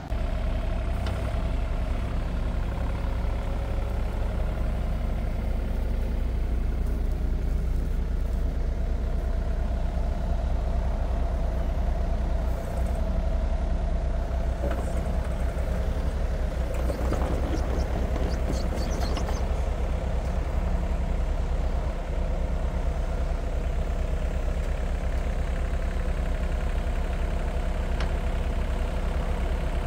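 Compact excavator's diesel engine running steadily with its hydraulics working as it carries and lowers a boulder of about 1,500–2,000 pounds, a load at the limit of the machine's lifting capacity. Brief scraping noise midway and a single click near the end.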